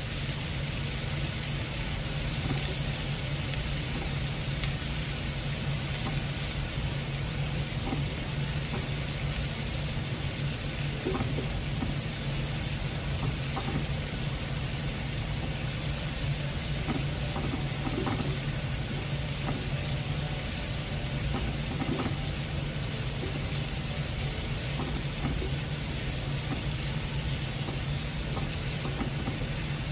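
Onion paste and black cumin seeds sizzling steadily in hot oil in a non-stick frying pan, fried to drive off the onion's raw smell, with a silicone spatula stirring now and then. A steady low hum runs underneath.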